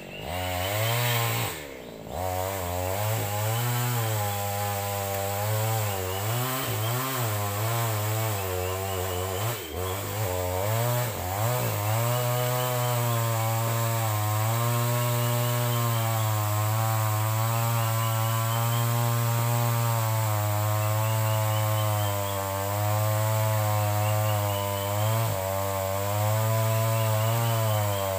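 Chainsaw engine running, its pitch wavering up and down with the throttle for the first dozen seconds, then holding steadier at a fast run.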